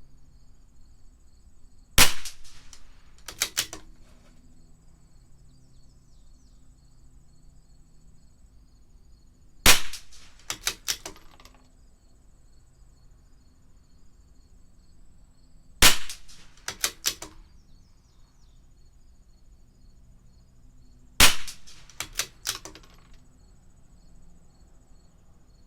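CZ 457 bolt-action .22 LR rimfire rifle firing four single shots several seconds apart, a sharp crack each time. Each shot is followed about a second later by a quick run of small metallic clicks as the bolt is worked to chamber the next round.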